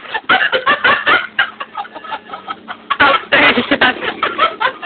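Chickens clucking in quick runs of short calls, thinning out around the middle and picking up again about three seconds in.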